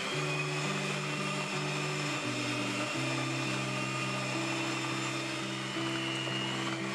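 Electric hand mixer running at a steady speed with a high, even motor whine, its beaters working butter and powdered sugar into dough in a glass bowl.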